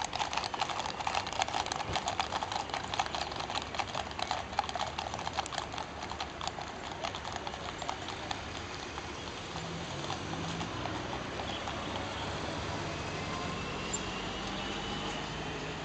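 Hooves of several ridden horses clip-clopping on a paved road, a fast run of sharp clicks that fades away over the first half. In the second half a car engine runs as a Hindustan Ambassador passes close by.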